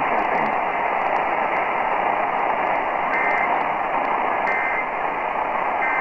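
Static-filled AM broadcast from a Sangean portable radio's speaker: a steady hiss, broken three times, about a second and a half apart, by short two-tone data bursts. These are the Emergency Alert System end-of-message code closing a Required Weekly Test.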